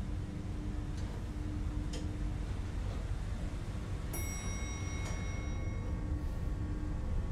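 Elevator car running with a steady low hum and a couple of faint clicks, then a single bright bell-like elevator chime about four seconds in, ringing on and fading over a couple of seconds.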